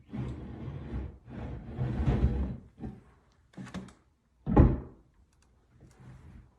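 Handling noise of objects being moved and set down, rustling or scraping for the first two and a half seconds, then a few small clicks and one sharp thud about four and a half seconds in.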